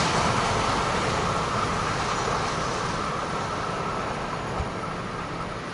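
Container freight train's wagons rolling on the rails and fading as the last cars draw away, with a faint steady high ring above the rumble. One brief knock about four and a half seconds in.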